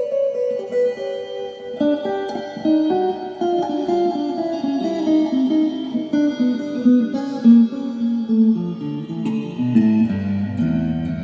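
Guitar improvising a melodic line of single plucked notes, picking up into quicker runs after a couple of seconds and working down into lower notes near the end.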